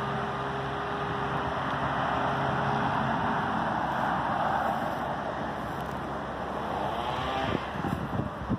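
Steady outdoor background noise of road traffic and wind on the microphone. A low hum under it stops about three and a half seconds in.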